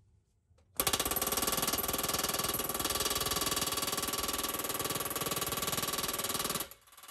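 Pneumatic air hammer driving a pickle-fork wedge between a seized axle pivot arm and its pin, a loud fast rattle of blows. It starts suddenly about a second in, stops for a moment near the end and starts again.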